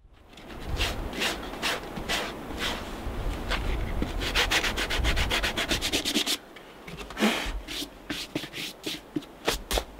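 Abrasive rubbing on the rubber bottom of a Vision Mako wading boot, roughening it for a glued-on replacement sole. It goes in back-and-forth strokes, about two or three a second, quickens to rapid strokes about four seconds in, and stops about six seconds in, leaving a few scattered scrapes.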